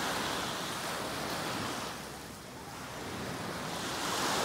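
Small sea waves washing onto a sand and pebble shore: the hiss of one wash fades about halfway through and the next swells in near the end.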